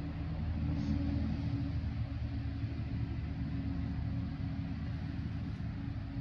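Steady low mechanical hum with a few held low tones, unchanging throughout.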